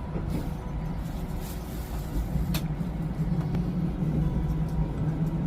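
Passenger train running, a steady low rumble with a single sharp click about two and a half seconds in.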